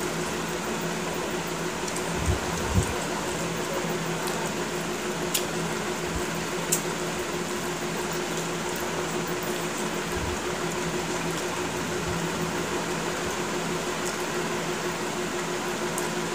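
Steady hum and hiss of a running fan, with a few light clicks and taps of fingers against steel plates while eating by hand.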